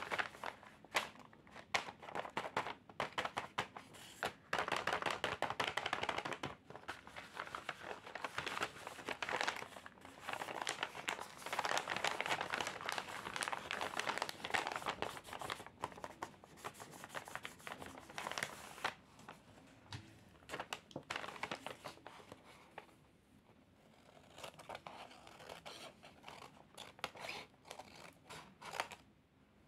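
A hand-made paper bag being handled, folded and crinkled: bouts of dense paper rustling and crackling that die down to lighter handling toward the end. Small scissors snip along the paper's edge near the end.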